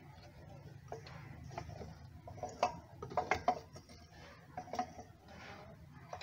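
Small metal and plastic parts clicking and knocking as a throttle body and its wiring connector are handled and positioned on the engine. The clicks are scattered, with a cluster about halfway through, over a low steady hum.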